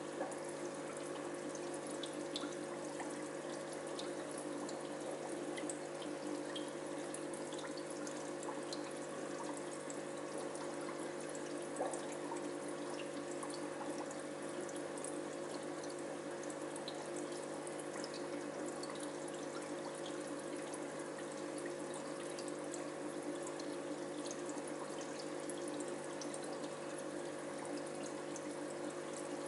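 Aquarium filter running: water trickling and bubbling steadily with small pops, over a steady low motor hum.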